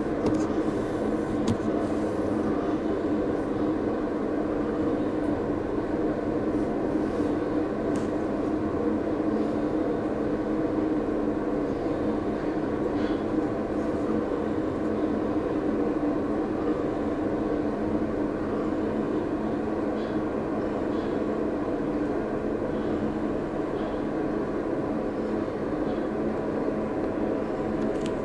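Soda vending machine's refrigeration compressor and fan running: a steady mechanical hum made of several even tones over a low rumble.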